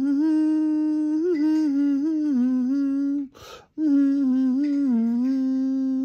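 A man humming a tune with his lips closed: long held notes that step up and down a little in pitch, with a quick breath in about halfway through.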